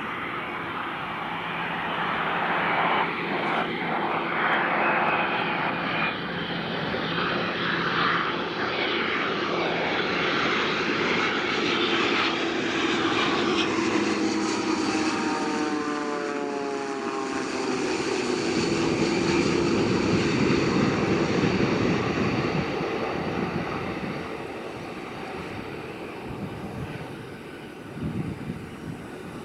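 Boeing 787-9 jet engines on final approach: a steady whine whose tones fall in pitch as the jet passes by about halfway through. This gives way to a broad, deep rumble as it lands, easing off near the end.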